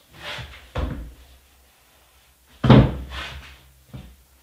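A spline roller tool pressing spline into the channel of a powder-coated aluminium window-screen frame, giving a series of about five knocks and thuds. The loudest comes about two and a half seconds in.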